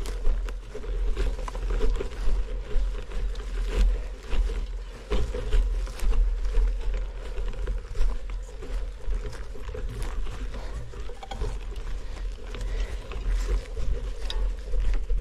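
Wind buffeting the microphone as a heavy, pulsing low rumble, over the crunching and rattling of bicycle tyres rolling on a gravel track, with many short sharp clicks and knocks.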